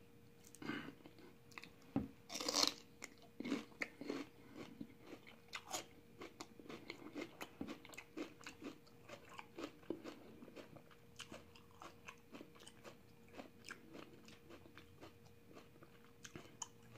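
Crunching and chewing of a raw celery stalk, close up. A loud crunchy bite comes about two seconds in, then a long run of smaller crisp crunches as it is chewed.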